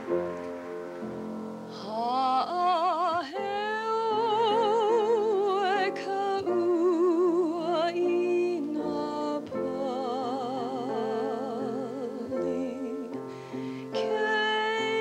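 A woman singing with a wide vibrato over a steady instrumental accompaniment; the voice comes in about two seconds in.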